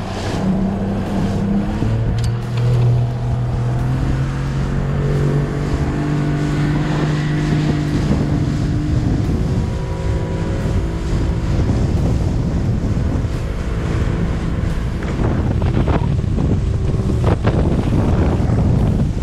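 Small boat's motor running under way, its pitch shifting up and down over the first few seconds. Heavy wind rumble on the microphone, with water noise and occasional knocks, grows to cover it in the second half.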